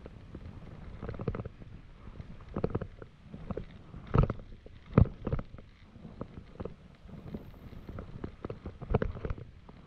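Mountain bike rolling fast down a dirt singletrack trail: a low rumble of tyres and wind noise on the microphone, broken by frequent knocks and rattles from the bike over roots and bumps. The hardest knocks come about four and five seconds in, and another cluster comes near the end.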